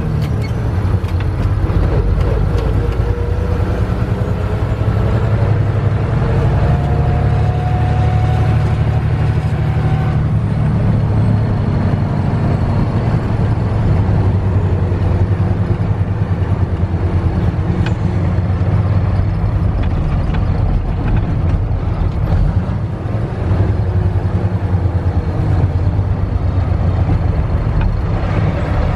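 Diesel engine of a 1982 Mack R-Series truck running as it drives along, heard from inside the cab as a steady low drone.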